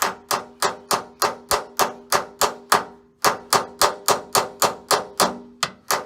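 Hammer striking a steel punch tool in quick, regular blows, about three a second with a short pause partway through, each blow ringing metallically. It is driving a rusted, seized metal door hinge liner out of a Jeep Wrangler JK door hinge.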